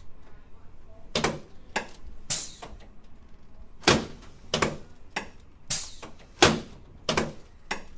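Chiropractic spinal adjustment on a patient lying face down: about ten sharp thuds and cracks at uneven intervals from the chiropractor's thrusts against the body and table.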